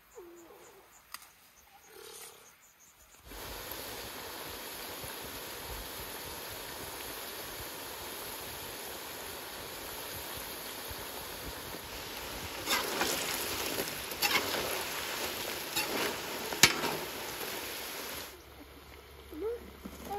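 Potato wedges deep-frying in oil in a large metal cauldron: a steady sizzle. Between about 13 and 17 seconds in, a few sharp knocks sound over it.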